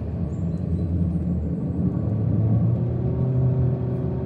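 Car driving on a winding road, heard from inside the cabin: a steady low rumble of engine and tyre noise.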